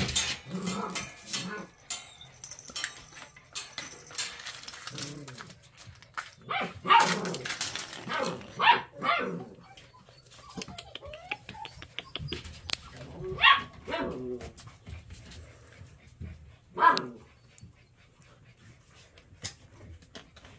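Golden retriever puppy giving short, high barks and yips in three brief clusters, among scattered clicks and clatter from the puppy moving about with its toys.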